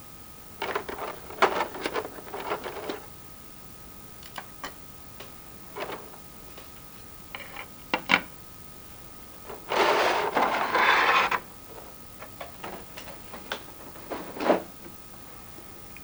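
Hands handling a plastic toy figure and its packaging, making irregular clicks, taps and short rustles. One louder, denser rustle lasts about a second and a half, just past the middle.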